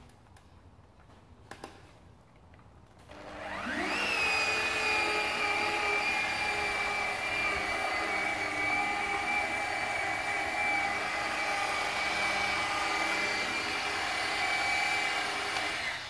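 An electric motor spins up with a rising whine about three seconds in, runs at a steady high pitch, and starts winding down at the very end.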